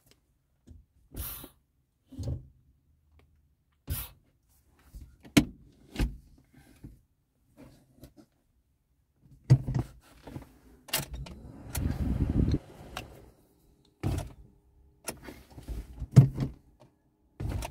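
A car's starter motor cranks for about three seconds without the engine catching, among scattered clicks and knocks from the controls. A faint steady hum follows.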